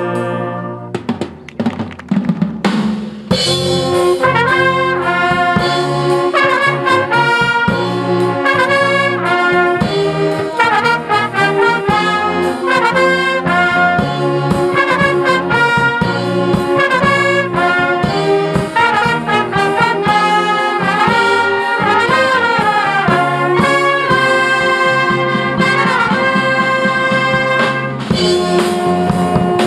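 Concert wind band playing: a held chord dies away in the first second or so, and about three seconds in the full band comes back in, brass carrying the melody over woodwinds and drums.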